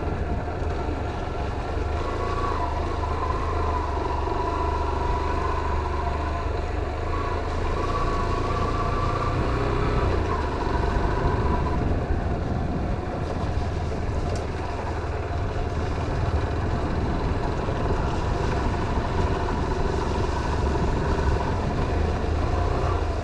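Motorcycle engine running at a fairly even pace with a few wavering tones in its note, over a constant low rumble.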